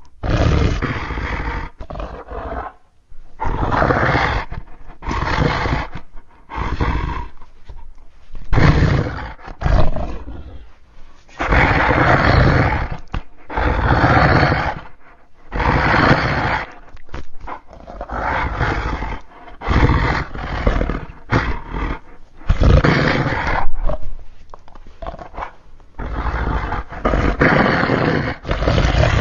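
Creature sound effects: a string of animal-like roars, each one to two seconds long, separated by short gaps.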